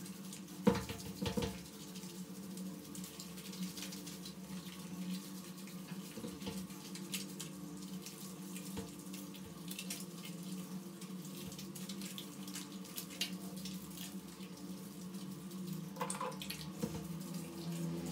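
Hands working shampoo lather through a wet toy poodle's coat, giving wet squishing and scrubbing sounds over a faint steady hum in a small tiled bathroom. Two sharp knocks come about a second in.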